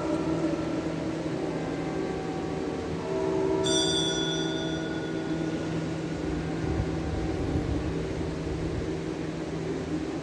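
A small altar bell is struck once, about four seconds in, and rings out over sustained low held tones. It marks the elevation of the host just after the consecration at Mass.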